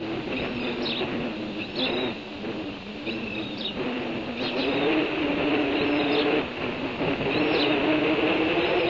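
A motor vehicle's engine runs as a steady hum that grows louder about halfway through, while a bird chirps repeatedly, about once a second.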